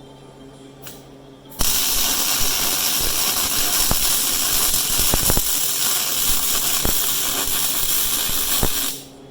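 Arc welding a first pass into a ground-out crack in a cast-iron engine block: a loud, steady crackling hiss with scattered pops that starts abruptly about a second and a half in and stops shortly before the end. Low background music runs underneath.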